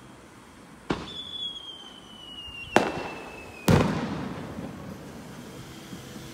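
Fireworks going off: three sharp bangs about a second or two apart, the last trailing off in a long rumbling echo. A high, thin whistle falling slightly in pitch runs between the first and the last bang.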